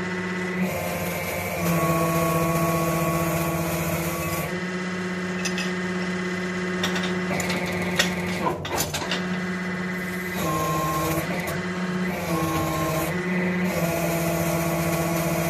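Electric-hydraulic shop press: its pump motor hums steadily, changing note several times as the valve lever is worked. A short run of sharp metallic clicks about eight seconds in comes as the ram pushes a pre-sizing drift through a phosphor-bronze small-end bushing in a connecting rod.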